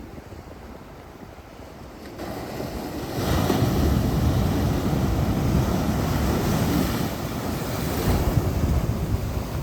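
Ocean surf: a wave builds about two seconds in and breaks loudly about a second later, its wash rushing on for several seconds before easing slightly near the end.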